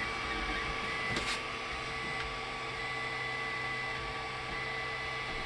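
Bowden-tube FDM 3D printer running mid-print, its motors giving a steady whine of several held tones over a low hum, with a faint tick about a second in.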